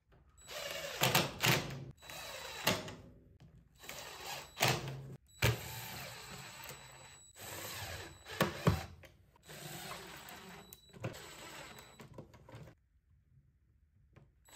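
Yellow DeWalt cordless drill driving screws through a steel hinge into a plywood lid. It runs in about seven short bursts of a second or so each, with clicks between them.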